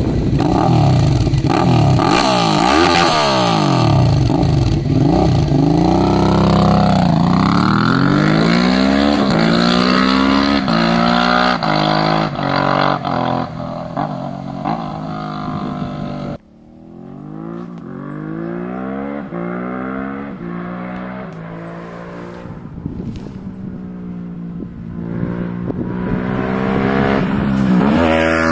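Suzuki V-Strom 650's V-twin through a Delkevic carbon full exhaust with the baffle removed, pulling away hard and accelerating up through the gears, the pitch dropping at each shift and climbing again as it fades into the distance. After a sudden cut about sixteen seconds in, the bike is heard accelerating up through the gears again from far off, growing louder as it approaches near the end.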